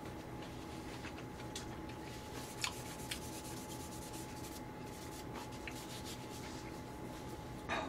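Faint rustling of a paper tissue being folded and rubbed between the hands, with a couple of small ticks about two and a half and three seconds in, over a steady low hum.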